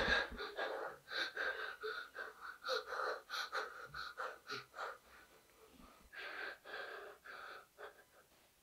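A frightened girl panting in quick, ragged gasps, woken from a nightmare. The breaths come fast for about five seconds, stop for about a second, then a few more follow.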